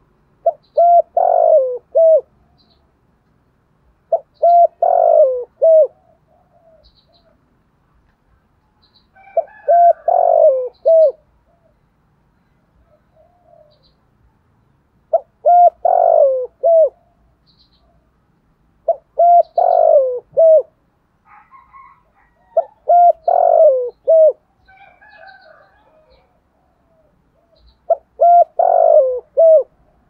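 Spotted dove cooing its multi-note call, in the voice type that dove keepers call giọng thổ and use to lure wild doves. Seven phrases of about two seconds each, repeated every three to six seconds.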